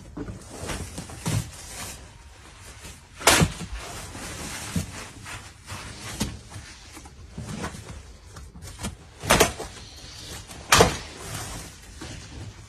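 Hollow bangs and knocks of large plastic water tanks being shifted and struck: softer knocks throughout, with one loud bang about three seconds in and two more near the end.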